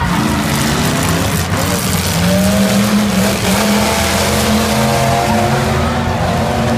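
Racing boat engine running loud at high revs, its pitch holding fairly steady with small wavers, over a rush of noise.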